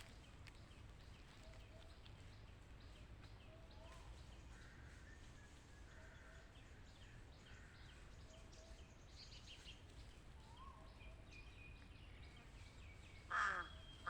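Quiet outdoor ambience with faint, scattered bird calls, then a crow cawing loudly near the end.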